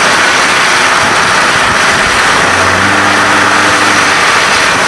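Steady road and wind noise of a moving car, heard from inside the vehicle, with a brief low hum in the middle.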